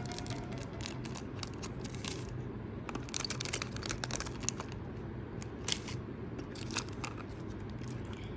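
Packaging being handled during an unboxing: scattered crinkles, rustles and small clicks, thickest about three seconds in, over a steady low hum.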